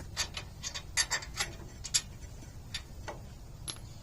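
A dozen or so sharp, irregular clicks and clinks as a loosened rear brake caliper bolt is pulled out by hand and the caliper is worked off the rotor.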